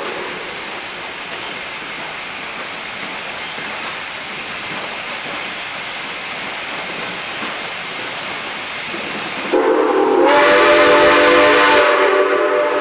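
K-36 2-8-2 steam locomotive No. 489 working toward the listener with a steady hiss, then blowing one long whistle blast, several tones sounding together, that starts about two-thirds of the way in and lasts about three seconds.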